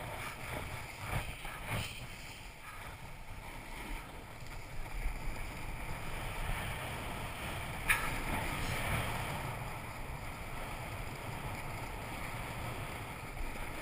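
Snowboard sliding and scraping over packed piste snow, with wind rushing over the moving camera's microphone. A single sharp tick about eight seconds in.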